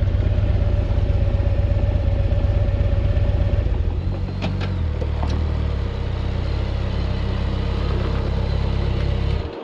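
Touring motorcycle engine idling close by with a low, lumpy pulse. A second motorcycle pulls up about four seconds in, with a couple of light clicks. Near the end the engine is switched off and the sound cuts off suddenly.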